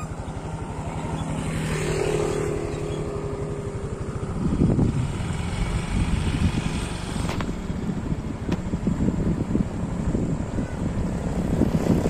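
Motorcycle engine running as the bike is ridden along a road, with a rougher, louder rumble setting in about four seconds in.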